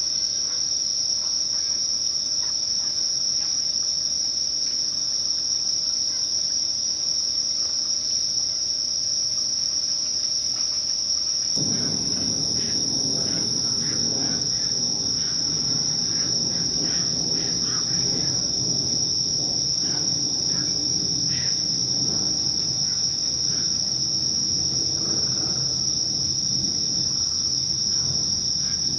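Steady, high-pitched chorus of night-singing insects on a late-summer evening. About twelve seconds in, a low steady hum joins underneath, with a few faint clicks.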